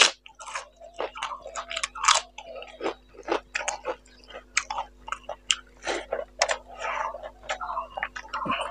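Close-up chewing and crunching of fried papad and rice, with a loud crunching bite at the start and irregular crackles and wet mouth sounds after it.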